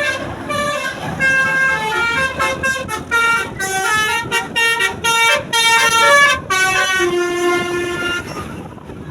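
Bus's Basuri telolet horn playing a tune: a quick run of stepped notes that stops near the end.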